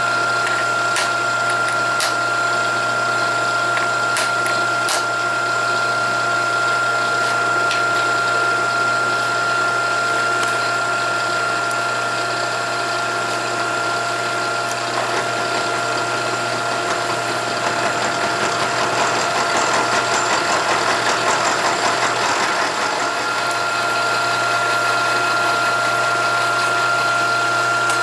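Milling machine running with a steady whine while the cutter machines a metal hinge piece. There are a few sharp clicks in the first several seconds, and the cutting noise turns rougher and grittier a little past the middle.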